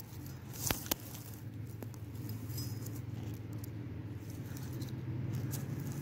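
Rustling and crackling of dry grass and leaves as someone moves through undergrowth, with two sharp clicks about a second in and scattered small ticks. A steady low hum runs underneath.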